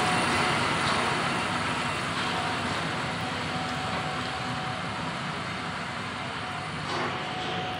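Diesel concrete mixer truck driving away, its engine and road noise slowly fading as it pulls off.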